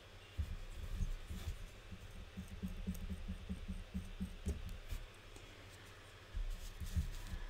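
Soft bumps and light clicks of hands and a wooden modeling tool working wet clay on a tabletop, pressing and smoothing the clay.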